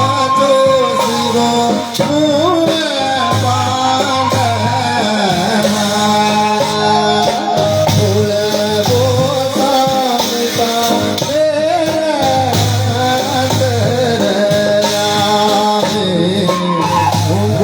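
Himachali folk music played by a band, with a voice singing a wavering melody over instrumental accompaniment and a steady bass.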